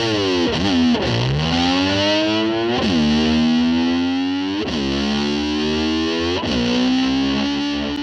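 Music: a distorted electric guitar holding long, effect-laden notes that dive sharply in pitch and slide back up several times.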